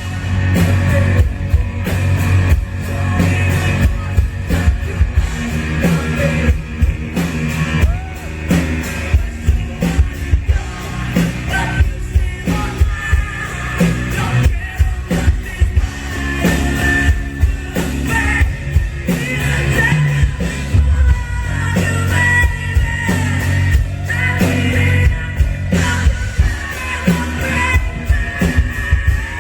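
Rock band playing live, with loud drums hit at a fast, steady rhythm, guitars and a singer's voice.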